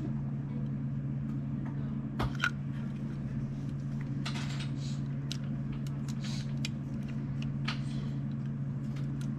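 Lego bricks clicking and rattling as pieces are handled and pressed together, a few sharp clicks, the loudest a little over two seconds in, over a steady low hum.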